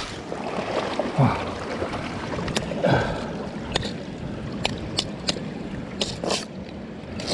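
Steady water and wind noise with scattered light knocks and taps.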